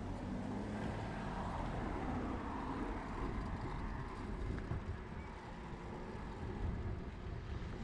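Steady city street traffic noise heard from a moving bicycle, with cars and a bus running on the road ahead.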